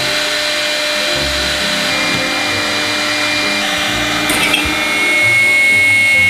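Overhead router running at high speed, its bit cutting a curved groove through a board: a loud, steady whine with the cutting noise, a little louder near the end.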